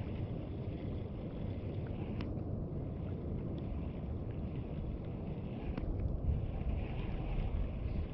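Wind buffeting the microphone outdoors: a steady low rumble with a few faint clicks.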